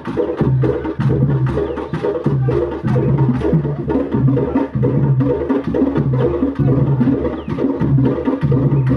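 Drum music: a steady, fast rhythm of drum strokes over a repeating low pattern.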